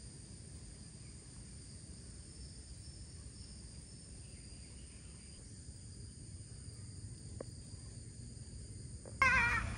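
Steady high chirring of crickets and other insects over a faint low background hum. Near the end a much louder pitched call cuts in.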